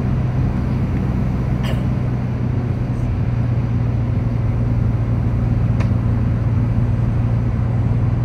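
A vehicle driving along: steady engine and road noise with a strong low hum, and two faint clicks, one just under two seconds in and one about six seconds in.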